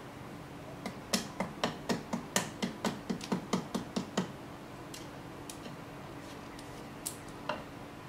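Wooden spatula knocked upright against a tree-stump block: about fourteen quick wooden knocks, roughly four a second, then two more near the end.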